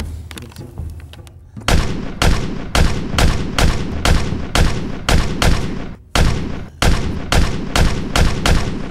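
Video-game-style gunshot sound effects dubbed onto the video: a string of sharp shots at about two a second, starting about a second and a half in, with a brief break about six seconds in.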